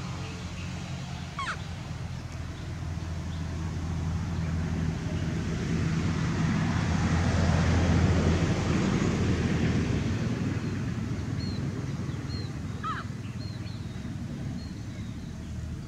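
A motor vehicle's engine hums steadily, swelling louder toward the middle and then fading away, as a passing vehicle does. A few short, high, rising squeaks come through about a second in and again near the end.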